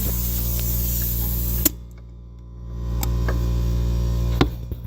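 Air ratchet running under air pressure with a steady hum and hiss. It stops with a click about a second and a half in, starts again about a second later, and stops once more near the end.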